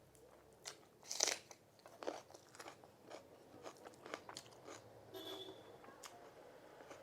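Eating sounds: a string of crisp crunches and chewing, with the loudest crunch about a second in.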